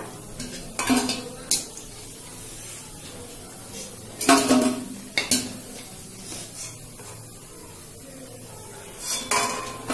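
Steel slotted skimmer scraping and clinking against a steel kadai and steel bowl as fried pakoras are lifted out of the oil, with several sharp clatters, the loudest about four seconds in. A faint sizzle of the frying oil runs underneath.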